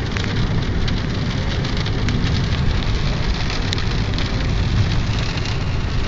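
Steady rumble and hiss of a car driving on a wet road, heard from inside the cabin, with many light ticks of rain hitting the car and a sharp click near the middle.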